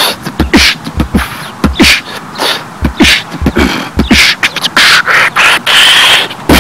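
Human beatboxing: vocal kick-drum thumps and hissing snare strokes in a fast, loud rhythm, turning from about five seconds in into a long drawn-out hiss.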